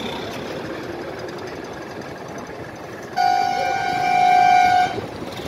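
A vehicle horn sounding one steady honk of nearly two seconds, starting about three seconds in, over street background noise.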